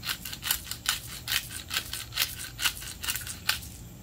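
Hand-twisted pepper grinder cracking black peppercorns, a run of short crunching grinds about two a second.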